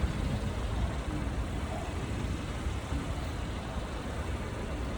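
Steady outdoor background noise with a low rumble, like road traffic, with no distinct events.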